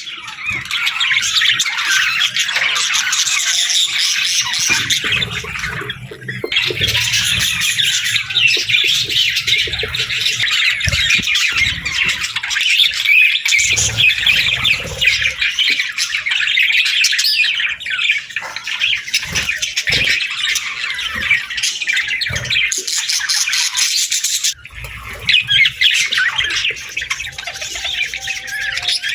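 Several budgerigars (parakeets) chirping and chattering together in a dense, continuous stream of quick high calls, with brief lulls about six seconds in and again near the end.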